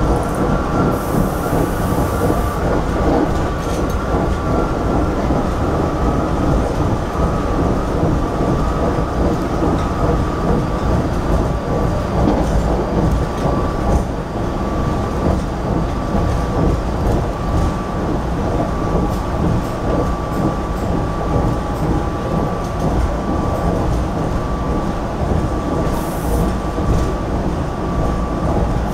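A GE Silverliner IV electric multiple-unit railcar running along the line, heard from inside the passenger car: a steady rumble of wheels on rail with a thin steady whine over it. Two brief hisses come through, about a second in and near the end.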